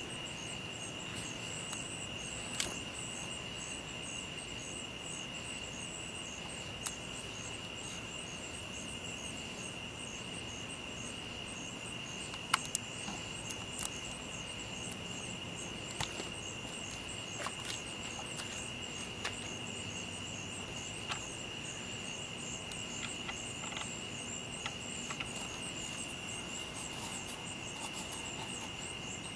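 Night insects calling: crickets keep up one steady high trill, with a second, faster-pulsing insect call above it. A few faint clicks are scattered through.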